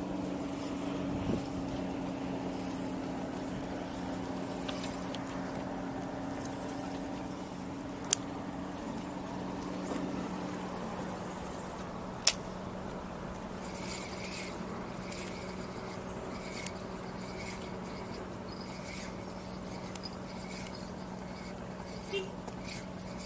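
Steady low hum of an idling motor-vehicle engine, with one of its tones dropping away about ten seconds in. Two sharp clicks come partway through, and light ticks follow later.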